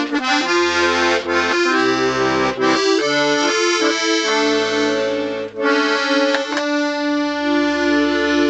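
Scarlatti 24-bass piano accordion being played: a melody of sustained reedy notes over bass notes, with a brief break about five and a half seconds in. Its reeds have just been refitted and are not yet tuned.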